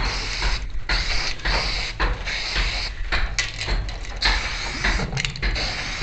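Aerosol spray-paint can hissing in several bursts with short breaks between them, marking lines onto the wall, over a steady low rumble.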